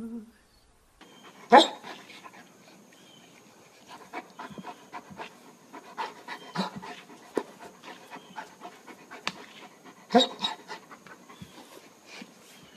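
A dog panting in quick, irregular breaths, with a sharper, louder sound near the start and another about ten seconds in.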